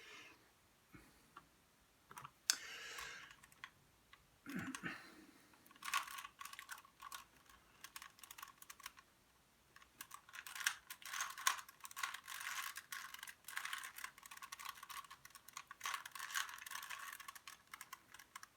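A plastic Rubik's Cube being twisted: a few scattered clicks at first, then from about a third of the way in a fast, dense clatter of layer turns with short pauses, like typing.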